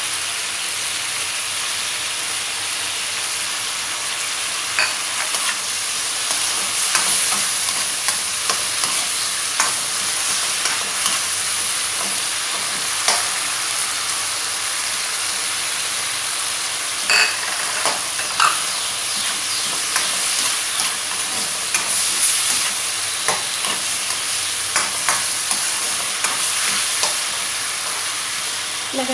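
Chopped tomatoes, garlic and green onions sizzling in hot oil in a wok, with a steady hiss. A metal spoon scrapes and clinks against the pan at irregular moments as the mixture is stirred.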